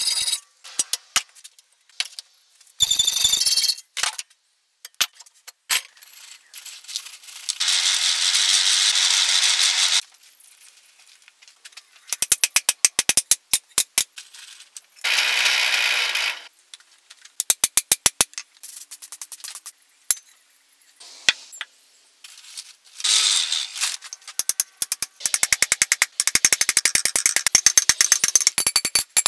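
Hand metalworking on steel strap: a run of sharp hammer blows on steel at the anvil, coming faster near the end, broken by two steady rasping stretches of about two seconds each.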